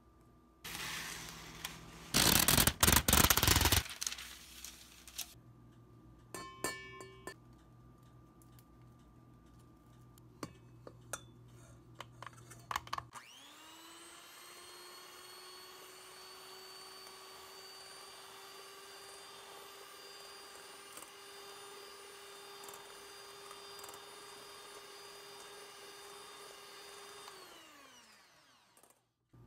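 An electric mixer whipping egg whites in a stainless steel bowl: its motor spins up about halfway through, runs at a steady pitch, then winds down and stops near the end. Before it starts there is a brief loud burst of noise, then a few scattered clicks and knocks.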